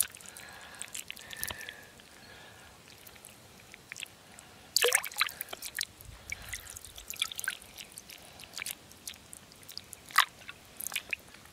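Pond water dripping and plinking off a wet hand and goldfish in scattered sharp drops. About five seconds in comes one louder splash as a ryukin goldfish goes back into the water.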